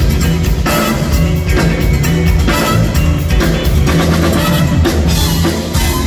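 A live funk and soul band playing: drum kit, electric bass and electric guitars with a horn section over a steady beat.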